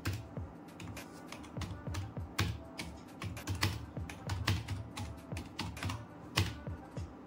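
Typing on an Ant Esports MK1400 membrane gaming keyboard: a quick, irregular run of soft key clicks, a few keystrokes louder than the rest.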